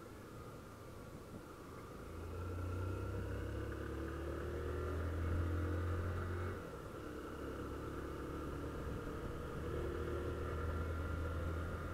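Honda CG 160 Fan motorcycle's single-cylinder four-stroke engine under way. It pulls harder about two seconds in with the revs climbing, the revs drop suddenly about six and a half seconds in, and then it runs on steadily.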